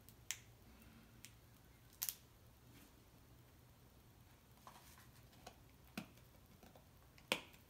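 A few small sharp clicks and faint crinkling from a Party Pop Teenies toy being opened by hand rather than popped. The loudest click comes near the end.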